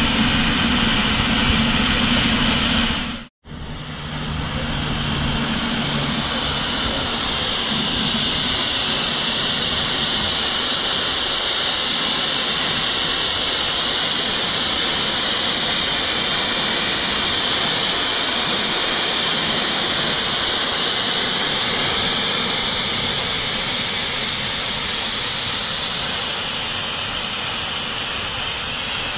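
LMS Black 5 steam locomotive 44871 letting off steam: a loud, steady hiss that grows stronger and brighter a few seconds in and eases slightly near the end. The sound cuts out for a moment about three seconds in.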